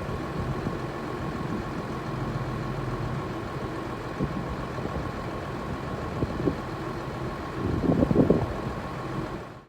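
Tractor engine running steadily, with a low hum and a thin steady whine, growing louder for a moment about eight seconds in.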